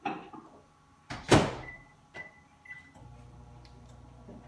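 Microwave oven door shut with a knock, then three keypad beeps, then the oven starting up and running with a steady low hum as it heats the chocolate chips and milk.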